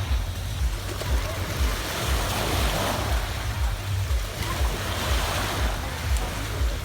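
Sea waves washing onto a pebble beach, the wash swelling twice and falling back. Wind rumbles on the microphone underneath.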